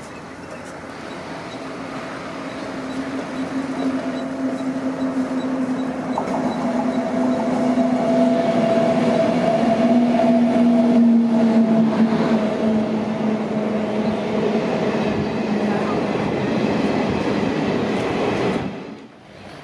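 A WAP-7 electric locomotive and its passenger coaches approaching and passing close by: a steady electric hum from the locomotive grows louder to a peak about halfway, then gives way to the rumble of the coaches rolling past. The sound cuts off abruptly near the end.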